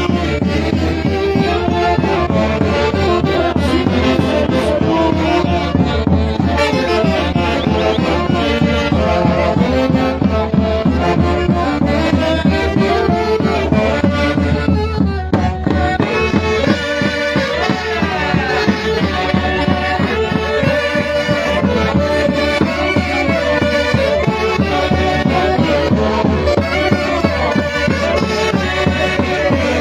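Peruvian orquesta típica playing santiago festival music: wind instruments carry the melody over a steady low bass, with no singing.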